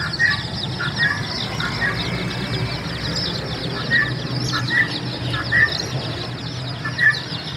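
A large flock of baby chicks peeping all together: a dense, unbroken chorus of short, high, downward-sliding peeps, with a few louder calls standing out now and then. A steady low hum runs underneath.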